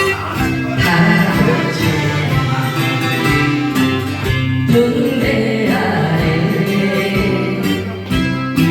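Music playing: the accompaniment of a Korean trot-style popular song.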